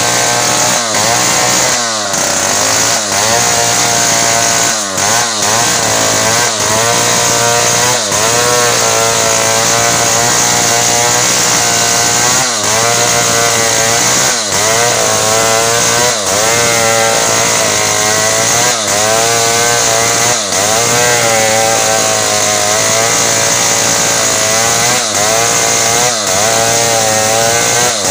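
Two-stroke chainsaw running at full throttle while cross-cutting a large hardwood log. The engine pitch sags and recovers every second or two as the chain bites into the wood under load.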